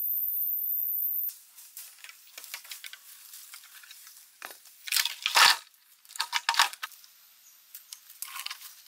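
A steady high-pitched electronic tone for about the first second, then footsteps and rustling in dry leaves as long green bamboo poles are carried and handled. About five seconds in, the poles land on the ground with a loud clatter, followed by short knocks and scrapes of bamboo against bamboo.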